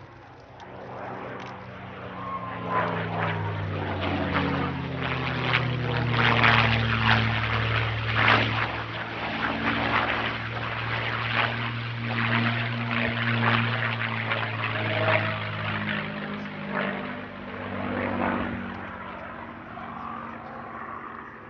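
P-51 Mustang's V12 Merlin engine flying past overhead. It swells a couple of seconds in, is loudest through the middle and fades near the end, its pitch sliding as it passes.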